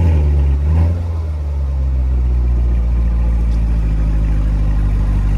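A 2018 Chevrolet Corvette's naturally aspirated pushrod V8 running: a brief rise in revs at the start that settles within about a second and a half into a steady, deep idle.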